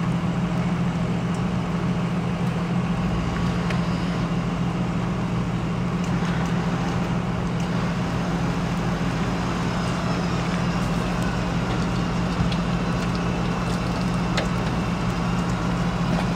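A motor vehicle's engine idling steadily, an even low hum with no change in speed.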